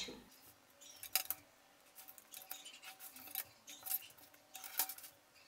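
Faint scratchy strokes of a marker pen drawing on kraft paper, mixed with light ticks and paper rustles from handling; the loudest strokes come about a second in and near the end.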